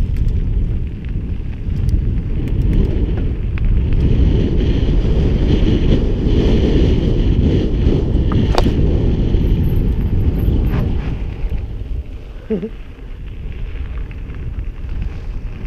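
Mountain bike riding fast along a gravel trail: wind buffets the camera's microphone in a heavy rumble, with tyre hiss and scattered clicks and rattles from the bike. The wind noise is strongest in the middle and eases off after about eleven seconds.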